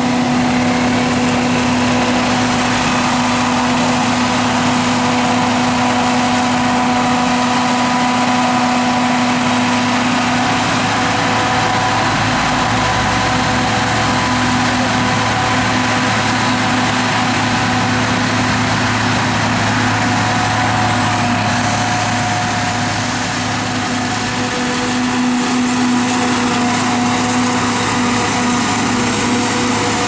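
John Deere 7950 ProDrive self-propelled forage harvester chopping crop: its engine and cutterhead run with a steady loud drone and a constant low hum.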